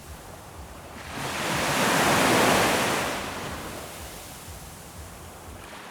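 Ocean waves: a single wave swells in about a second in, breaks with a rush of surf and washes back out, leaving a low steady wash.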